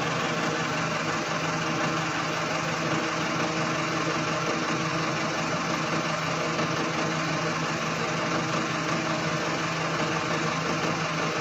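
Road roller's diesel engine idling steadily at an even pitch.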